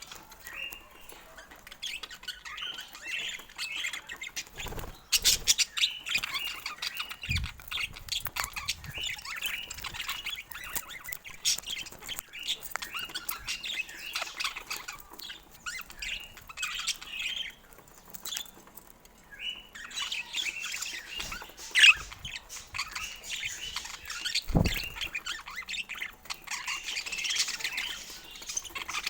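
Budgerigars chattering, a busy run of rapid chirps and squawks that thins briefly past the middle, with a few sharp clicks and two low thumps.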